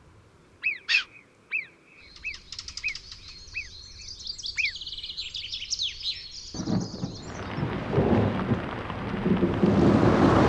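Birds calling: a string of short, repeated chirps, then a busy high chorus. About six and a half seconds in, it cuts sharply to a rushing noise that grows steadily louder.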